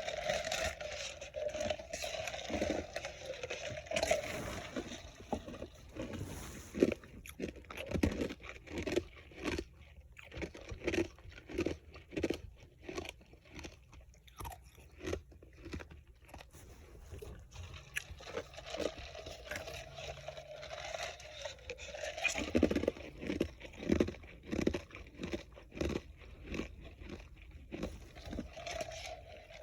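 Ice being bitten and chewed close to the microphone: a run of sharp, irregular crunches.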